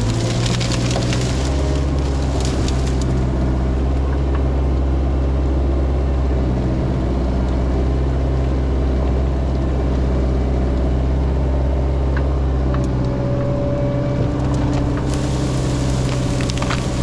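A compact earthmoving machine's diesel engine running steadily under load, its pitch shifting a couple of times. Brush and wood crack and snap at the start and again near the end as the machine works through a pile.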